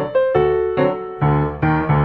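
Background piano music: a quick melody of struck notes over lower chords.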